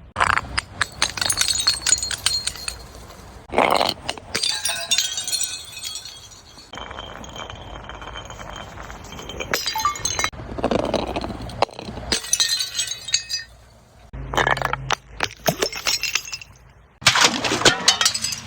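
Glass being crushed and broken: crunching and cracking with clinking shards, in about six separate bouts with short pauses between them.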